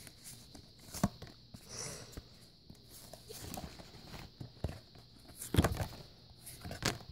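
Cards being handled by hand: scattered soft taps and rustles, with a few sharper knocks about a second in and again near the end.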